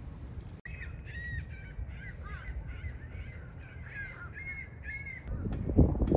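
Gulls calling over and over in short, arching cries, with wind rumbling on the microphone underneath; the wind gets louder near the end.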